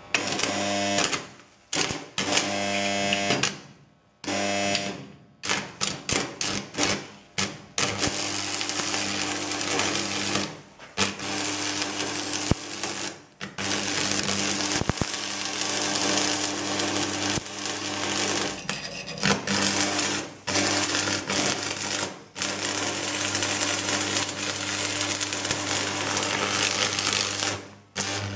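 AC stick-welding arc crackling and sputtering over a steady low buzz. For the first several seconds the arc is struck again and again, catching and breaking off in short bursts. After that it burns mostly steadily, with a few brief breaks.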